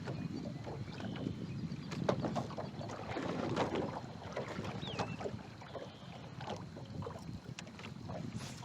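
Water lapping against a small fishing boat's hull with wind buffeting the microphone, and scattered small clicks and knocks.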